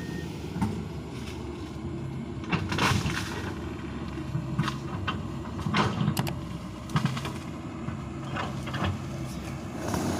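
Excavator's diesel engine running steadily, with irregular sharp knocks and cracks over it.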